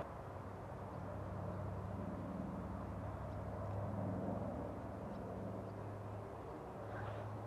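Distant formation of radial-engine propeller warbirds, a steady low engine drone that swells a little midway.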